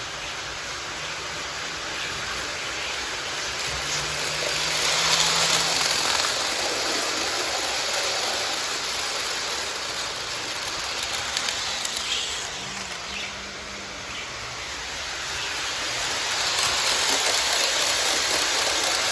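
Lionel model steam locomotive pulling a long train of cars, its wheels rolling on the track with a steady rushing rumble. The sound swells louder twice as the train comes nearer, around five seconds in and again near the end.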